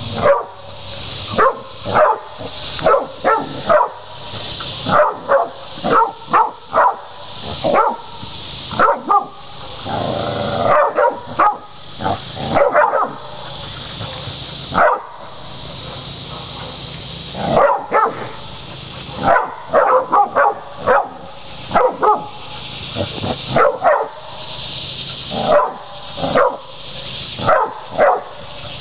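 Catahoula cur dogs barking over and over at a bunch of hogs, baying them, in short sharp barks that come singly and in quick runs.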